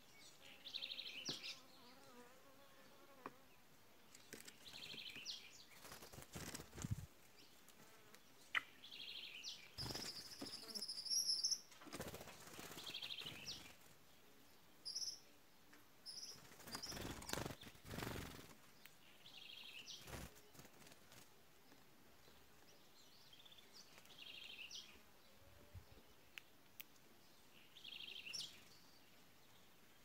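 Small birds calling faintly: a short, buzzy, trilled call repeated every three to five seconds, with a clear rising whistle about ten seconds in and a few brief rustles.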